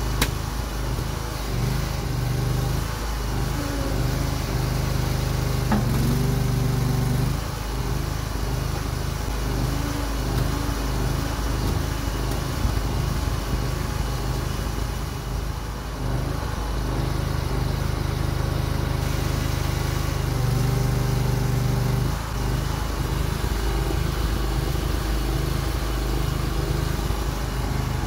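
Homemade tracked mini excavator's engine running and driving its hydraulic pump while the boom and bucket are worked. The engine note wavers as the controls are moved, holding steadier and louder twice for a second or two.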